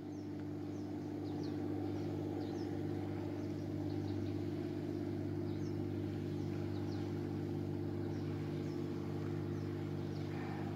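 A steady low machine hum with several held tones, growing slightly louder about a second and a half in, with faint short high chirps scattered over it.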